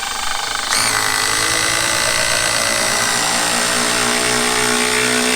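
Milwaukee M12 Surge hydraulic impact driver, on speed setting 3, driving a 2.5–3 inch screw into a deck board. It starts running and steps up louder under load just under a second in, then runs steady and smooth.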